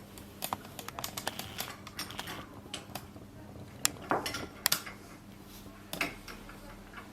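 Irregular metallic clicks and clinks of a small wrench working the high-pressure hose fitting on a PCP hand pump as it is tightened.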